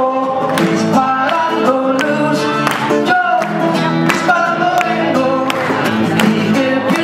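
Music: a song with plucked guitar and singing, notes struck at a steady pace.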